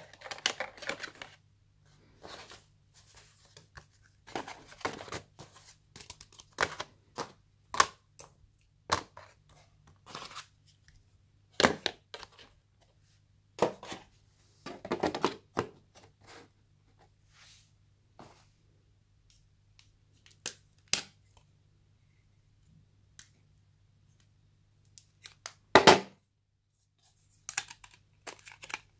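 Phone accessories and packaging being handled in a cardboard box: scattered rustles, clicks and knocks of cables, plastic and card, with one louder knock near the end.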